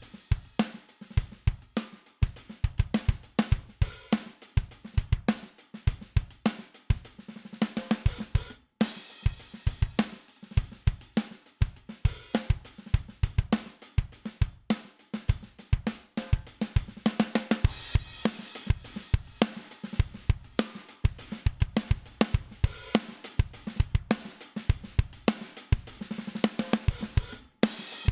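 Recorded drum kit groove from a mix's drum bus: kick, snare, hi-hat and cymbals in a steady beat, looping in phrases about eight seconds long. It plays dry at first, then through a dbx 160A compressor from partway through.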